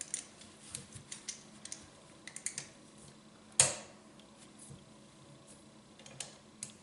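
Scattered light metallic clicks and taps of locking pliers (vice grips) being worked on the ring of a kitchen faucet spout, with one louder sharp click about three and a half seconds in.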